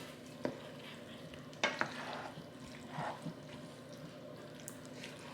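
A spoon stirring macaroni and cheese in a pan, quiet and wet, with a few short taps of the spoon against the pan.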